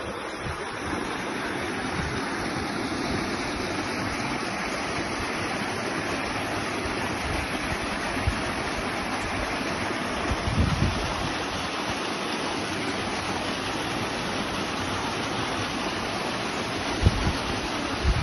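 Waterfall rushing: a steady, even roar of falling water, with a few brief gusts of wind buffeting the microphone.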